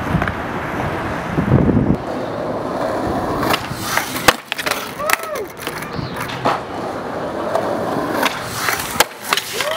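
Skateboard wheels rolling on concrete, then the sharp clacks and smacks of the board popping and landing, in a cluster about three and a half to four and a half seconds in and again near the end.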